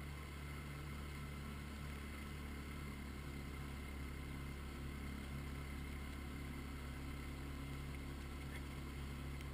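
Outboard motor of an inflatable boat running at a steady speed, a constant low drone.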